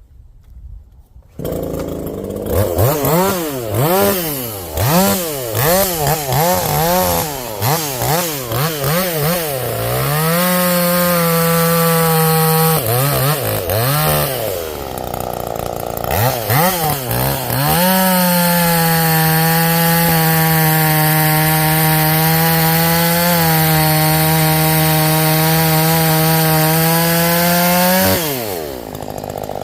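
Portland two-stroke chainsaw with a modified muffler, blipped up and down repeatedly, then held wide open for long stretches with brief dips under load as it cuts wood, dropping back to idle near the end.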